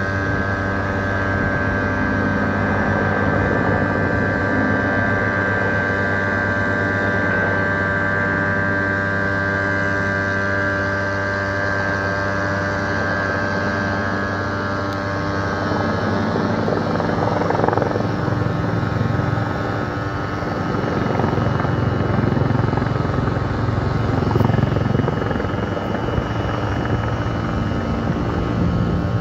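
Firefighting helicopter flying overhead: a steady high whine over a fast, even rotor beat.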